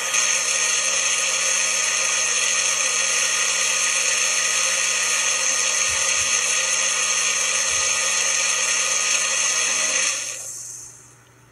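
Magic Bullet blender motor running steadily at full speed, blending almonds and water for almond milk. It spins down and stops about ten seconds in.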